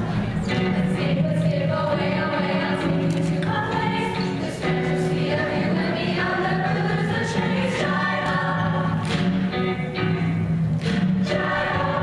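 Show choir singing in full voice over instrumental accompaniment, with a steady bass and regular drum and cymbal hits.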